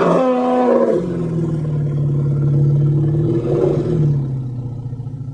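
Kentrosaurus dinosaur roar sound effect: a loud pitched call that starts high and falls within the first second, then holds as a long low roar that drops slightly in pitch about four seconds in and fades near the end.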